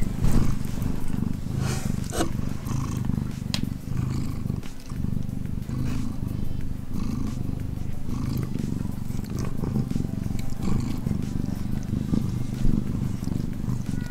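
Siberian forest cat purring close to the microphone: a steady, evenly pulsing low rumble.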